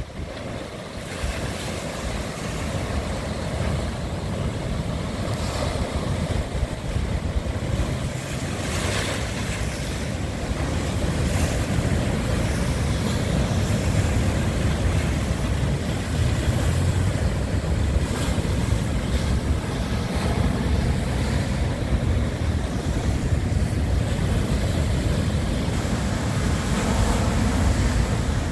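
Strong wind buffeting the microphone over rough storm surf, with waves crashing and splashing against a stone seawall. The sound grows louder over the first dozen seconds and then holds.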